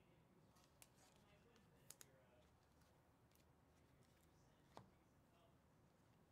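Near silence with a few faint clicks and taps, the loudest about two seconds in and another near five seconds, from trading cards being handled and sleeved.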